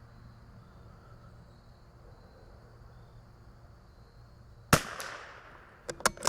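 A single shot from a CZ 457 bolt-action .22 LR rifle about three-quarters of the way in, its report trailing off over about half a second. A few quick sharp clicks follow near the end, the bolt being worked to chamber the next round.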